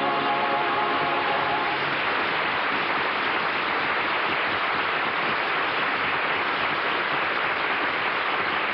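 Studio audience applauding on a 1950 radio broadcast recording, while the last held chord of a sung number with choir and orchestra fades out about two seconds in.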